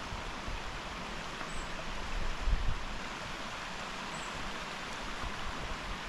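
A rocky upland stream running steadily, an even rush of water, with a brief low rumble about two and a half seconds in.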